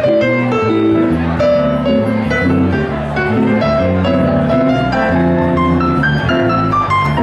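Instrumental music: piano over a bass line, with notes changing about every half second.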